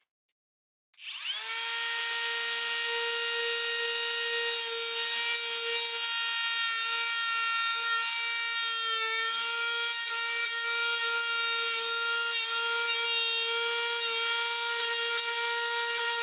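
Cordless compact trim router switched on about a second in, its whine rising quickly and then holding steady and high while the bit cuts into wood, with a noisy cutting rasp over the motor.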